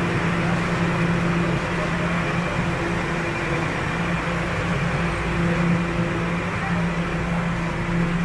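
Inside a Toronto Rocket subway car on TTC Line 1 as it runs: the steady rumble and rush of the train with a constant low hum.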